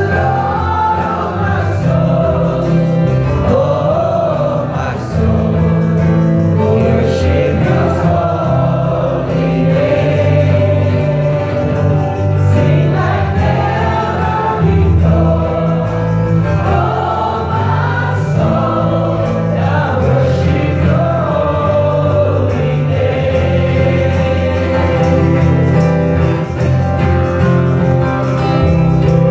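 Gospel worship song: a group of voices singing a melody over a band with a strong, changing bass line and drums.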